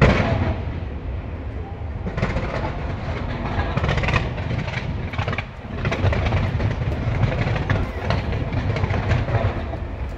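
Fireworks firing in a dense barrage from the Taipei 101 skyscraper: a continuous low rumble of overlapping bangs and crackles. There is a loud bang at the very start and a brief lull about five and a half seconds in.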